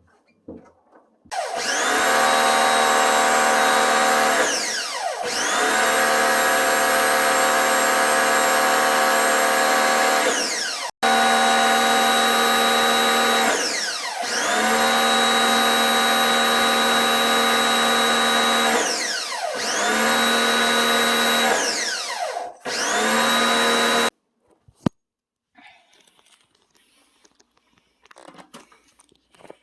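A handheld electric power tool's motor running hard in about six bursts of a few seconds each, with a steady high whine that winds down in pitch each time it is released.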